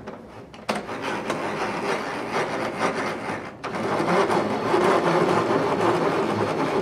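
CarveWright CNC machine's carving head being cranked down by hand, its lead screw turning through a rag held on the threads: a steady rough mechanical noise that breaks off briefly about three and a half seconds in, then goes on.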